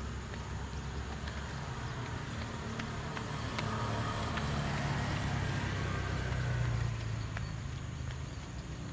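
Stroller wheels rolling on an asphalt road, a steady rumble with light footstep clicks. The rumble swells louder between about three and a half and seven seconds in, then settles back.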